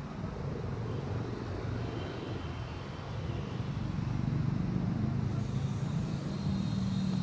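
Steady city road traffic, cars and motorbikes passing, heard as a low rumble that grows a little louder about halfway through.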